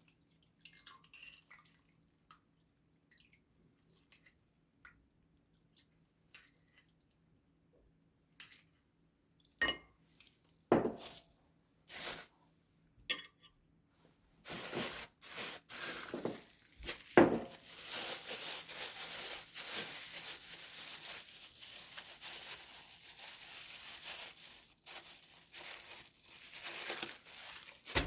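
Kitchen work: scattered clinks and knocks of dishes and utensils, then from about halfway a continuous rush of running liquid with clinks over it.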